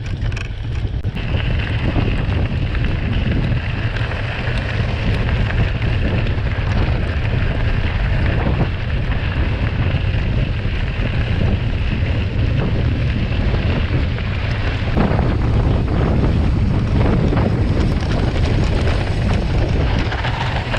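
Mountain bike ridden fast over a dirt and gravel trail, heard from a handlebar-mounted camera: wind buffets the microphone with a steady low rumble, over tyre noise on the loose surface and scattered knocks and rattles from the bike on rough ground.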